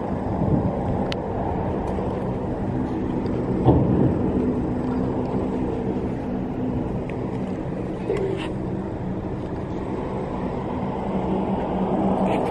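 Steady low rumble with a constant hum, like an engine running at idle, with a few faint clicks scattered through it.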